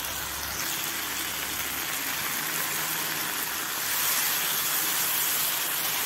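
Okra frying in hot oil in a pan with tomatoes and onions, stirred with a wooden spatula: a steady sizzle that grows a little louder about four seconds in.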